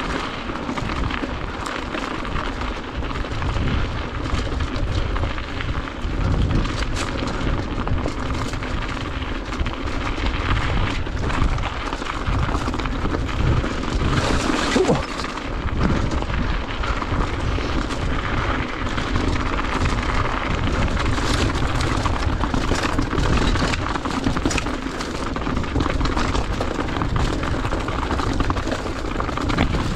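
Enduro mountain bike ridden fast down rough singletrack: wind rumbling on the on-board camera's microphone, with a continuous clatter of tyres, chain and suspension knocking over rocks.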